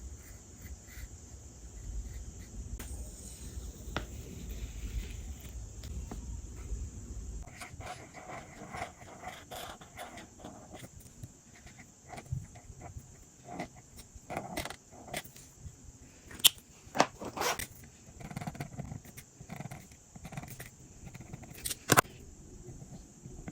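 Handling sounds of journal-making at a desk: paper and stationery rustling and scraping, with a few sharp clicks or taps, the loudest in the second half.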